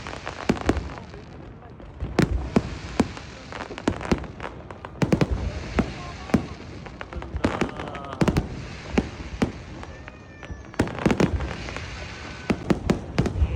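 Aerial fireworks display: a rapid, irregular series of bangs, with dense clusters of crackling reports bunched together at several points.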